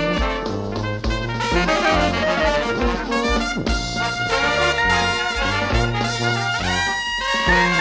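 Background music: an upbeat brass-led tune with trumpets and trombones over a steady beat.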